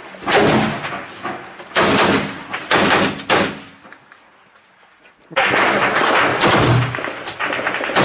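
Kalashnikov-type assault rifle fired at close range, echoing: a few separate shots in the first three seconds or so, then after a short quiet gap a longer stretch of rapid gunfire.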